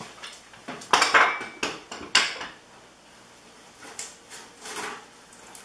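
Hard objects knocking and clattering as items are set down and rummaged through, with a cluster of sharp knocks and scrapes from about one to two seconds in, then fainter handling sounds near the end.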